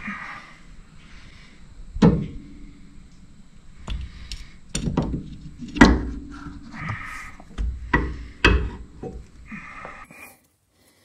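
Metal knocks and clunks of a new rear drive axle for a Subaru Outback being worked into place, its splined shaft knocking against the rear wheel hub as it is pushed through. There are several sharp knocks, the loudest about two and six seconds in, with rustling between them.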